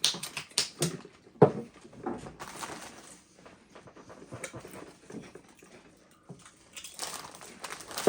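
Doritos tortilla chips crunching as several people chew them: irregular crisp crunches, the sharpest about a second and a half in.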